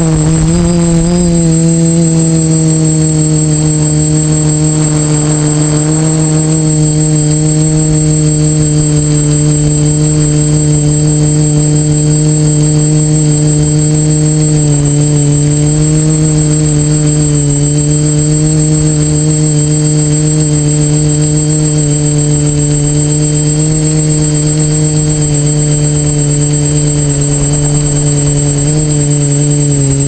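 Seeker 450 multirotor drone's electric motors and propellers droning steadily in flight, heard close up from the onboard camera, with a constant high whine above the hum. The pitch dips slightly about halfway through and again near the end.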